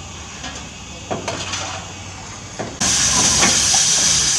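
Peckett saddle-tank steam locomotive, first a low steady hum with a few metal clanks, then a sudden loud, steady hiss of steam released about three seconds in, venting low at the front from the cylinder drain cocks and above the cab.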